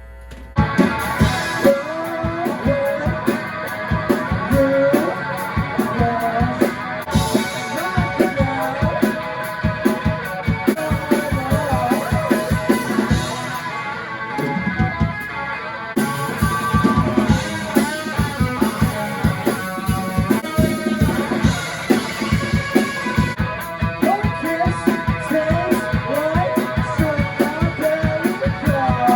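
Rock band music, electric guitars over a drum-kit beat, starting about half a second in and thinning out briefly about halfway through.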